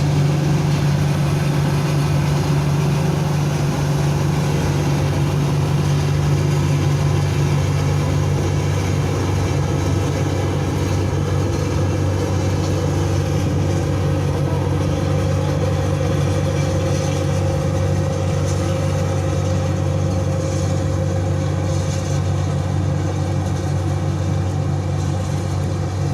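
Combine harvester working a wheat field: a loud, steady engine drone, with a higher steady whine coming in about halfway through.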